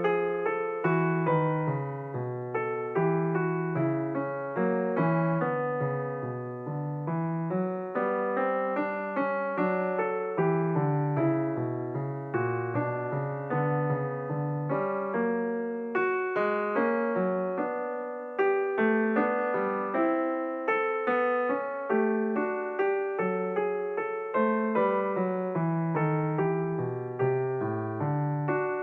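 Background music played on piano or electric keyboard: a steady run of struck notes over a lower bass line.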